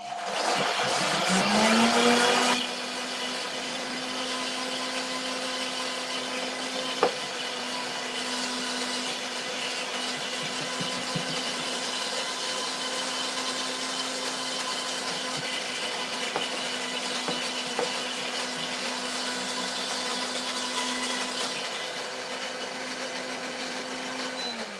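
Optimum G2.6 high-speed blender running a timed 25-second cycle at speed 6, blending coffee cream with the tamper pushed down through the lid. The motor spins up with a rising whine and runs louder for the first couple of seconds, then settles into a steady hum with a single knock about seven seconds in, and winds down with a falling pitch at the end.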